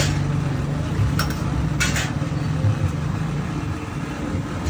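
Steady low mechanical rumble with two brief sharp clicks, about one and two seconds in.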